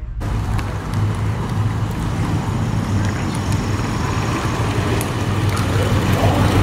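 Engine of a 1950s DeSoto sedan running at low speed as the car rolls slowly by: a steady low engine note, growing louder toward the end as it nears.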